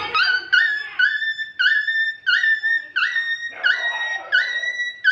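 A high, horn-like tone sounding as a string of about eight short notes. Each note scoops upward in pitch and then holds briefly, at a steady rhythm of roughly one and a half notes a second.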